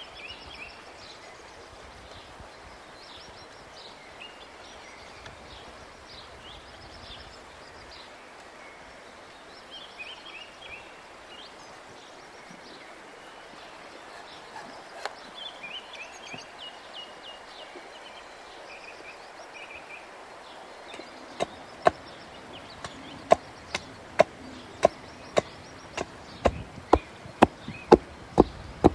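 Birds chirping over steady outdoor background noise. From about two-thirds of the way in, a run of sharp hatchet blows bites into a wooden stake as its end is hewn to a point. The blows come faster near the end, about two a second.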